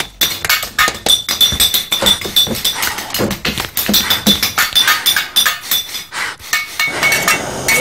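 Rapid, irregular clinking and clicking, many small metallic-sounding strikes, with a thin high ringing tone through parts of it. About seven seconds in it gives way to a denser, smoother wash of sound.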